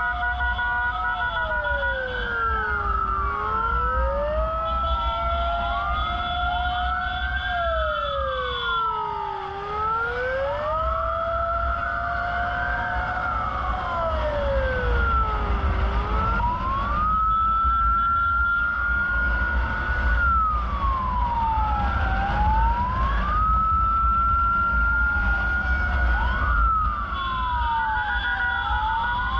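Several emergency-vehicle sirens wailing at once, out of step with each other. Each slowly rises and then falls in pitch every four to five seconds, over a steady low vehicle rumble. The lowest-pitched siren drops out about two-thirds of the way through.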